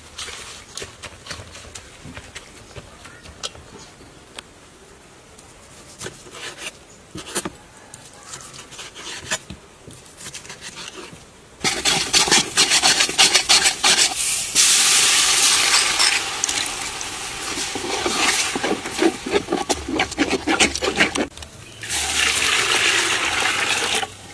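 Light handling noise with scattered soft clicks, then from about halfway a loud crackling hiss of food frying in hot oil. The frying comes in several long stretches broken by short pauses.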